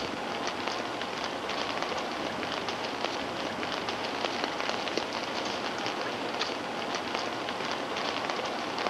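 Steady rain falling: a dense hiss with a scattered patter of drops.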